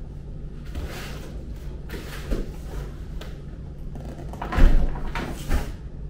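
A large cardboard box holding a portable fridge being handled and set down on a table: scraping and rustling cardboard with several knocks, the loudest a heavy thump about four and a half seconds in, then a lighter knock.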